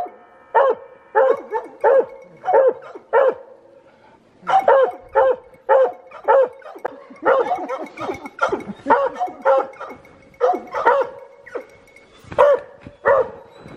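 Hunting hounds barking over and over at a mountain lion treed above them: the steady tree bark that tells the hunters the cat is treed. The barks come roughly two a second, stop briefly about four seconds in, then come thicker and overlapping for a few seconds.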